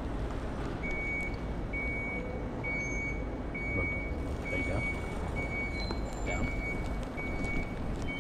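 Vehicle backup alarm beeping, a single high steady tone repeating just over once a second, starting about a second in, over a low rumble of engine and outdoor noise.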